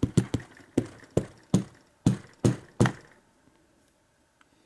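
About seven sharp metallic taps and clicks, roughly two a second, that stop about three seconds in: the brass key pins being knocked out of a disassembled American Lock 1100 padlock cylinder.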